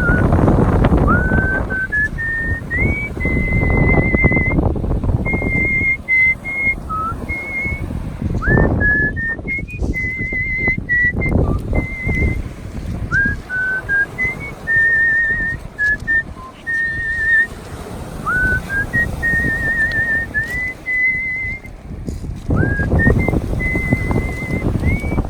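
Artistic human whistling: a melody of held notes with a wavy vibrato, many of them scooped up into pitch from below, over a rushing background noise that swells and fades.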